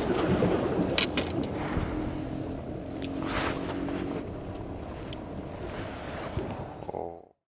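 Steady low rumble of wind and sea on the microphone, with a few sharp clicks as pliers work a hook out of a small pufferfish's mouth. The sound cuts off suddenly near the end.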